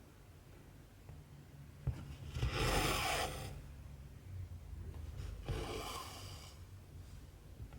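Cotton embroidery thread pulled through cross-stitch fabric twice, each pull a rustle of about a second, with a light click just before each.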